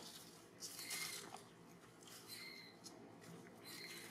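Faint, short high-pitched animal calls repeating about every second and a half, with a brief rustling noise about a second in.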